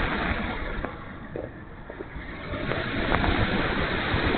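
Wind noise on the camera riding on an E-flite Night Radian RC glider in flight, a rough steady rush that eases about a second in and builds again near the end.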